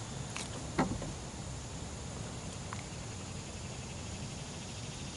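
Faint handling sounds as a bluegill is unhooked by hand: a few light clicks and taps, the clearest about a second in, over a steady low hiss.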